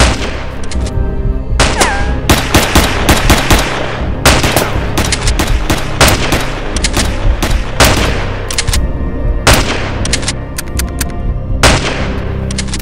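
Dubbed gunshot sound effects: a long exchange of single shots and quick runs of several shots, each with a short decaying tail, over steady background music.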